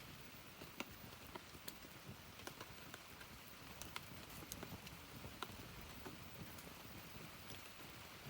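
Wood fire crackling: irregular sharp pops and snaps, a few to several a second, over a soft steady hiss of burning.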